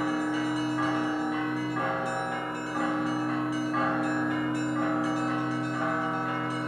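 Russian Orthodox monastery bells ringing a festive peal. Smaller bells are struck in clusters about once a second, in a repeating pattern, over the steady hum of the larger bells.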